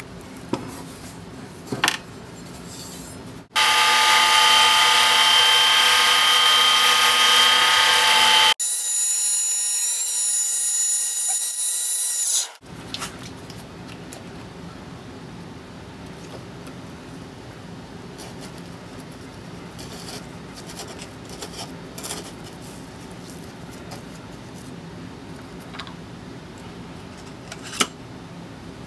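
A loud power-tool noise with several steady whining tones cuts in sharply a few seconds in. Midway it changes abruptly to a thinner, high-pitched whine, which stops suddenly after about four seconds. Before and after, a steady low hum with light clicks and taps of metal parts being handled on a workbench.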